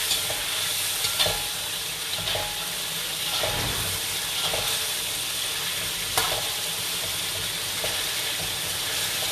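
Sambal sizzling in hot oil in a pan, a steady frying hiss, with the clicks of a utensil stirring against the pan every second or so.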